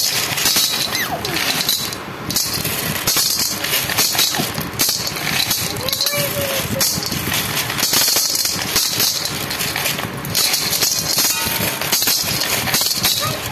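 Glass marbles dropped one after another onto a heap of marbles in a metal basin, clinking and rattling against each other and the metal in a steady stream of clicks.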